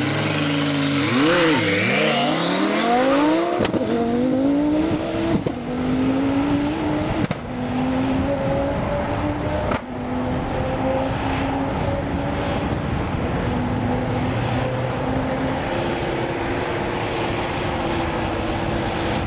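Two sports cars, a Lamborghini Gallardo and a Nissan GT-R, launch from a standing start and accelerate hard side by side. The engine note climbs and drops back at several upshifts over the first seven or so seconds, then settles into a steadier high drone as they run on down the track.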